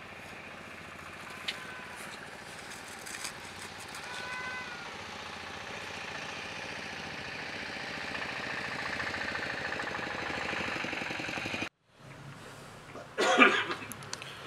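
Steady outdoor background noise that grows louder through the middle and cuts off suddenly at an edit; shortly after the cut comes a brief loud burst.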